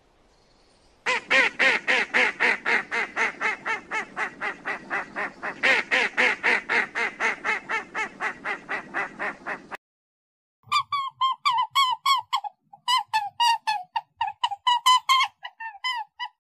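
Ducks quacking: a long run of rapid quacks, about four or five a second, that cuts off abruptly after some nine seconds. After a short gap come higher, quicker calls in bursts.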